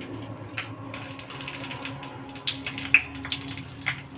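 Water running and splashing, with scattered small clicks and knocks over a steady low hum, one sharper click about three seconds in.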